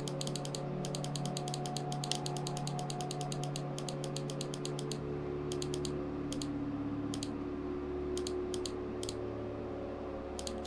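Rapid runs of small plastic clicks from a computer mouse as a numeric value is stepped up and down, dense for most of the first half and sparser later, over a steady low hum.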